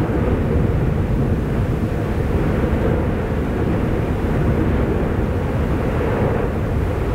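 Fagradalsfjall volcano's eruption rumbling: a loud, steady, deep rumble from the crater's lava lake, with no separate blasts.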